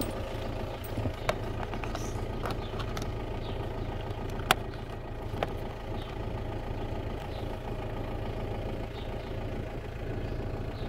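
Volkswagen Golf 5 engine idling steadily, heard from inside the cabin. Over it come a few short sharp clicks of the ELM327 diagnostic plug being handled and pushed into the OBD socket under the dashboard, the loudest about four and a half seconds in.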